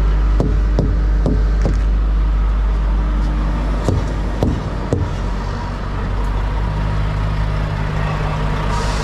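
Hammer striking truck tires during a pre-trip tire check, a run of sharp knocks: four in the first two seconds and three more about four to five seconds in. A diesel truck engine idles steadily underneath.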